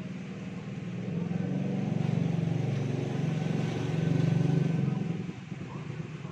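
A motor vehicle's engine passing by: a low hum that grows louder, peaks, and fades away about five seconds in.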